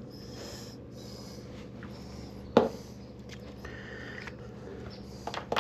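Faint scratching of a marker on tape over the aircraft's fuselage skin, with one sharp tap about two and a half seconds in, over a steady low hum.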